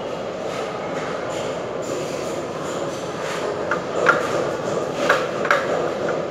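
Steady rumbling background noise, with a handful of sharp clicks and knocks about halfway through from hand work on a wall-mounted fixture.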